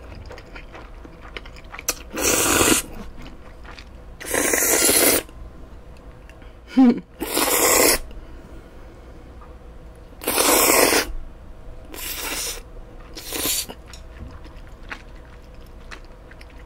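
Cold spicy instant bibim noodles slurped up in six loud separate slurps, each under a second long, with quieter chewing between them.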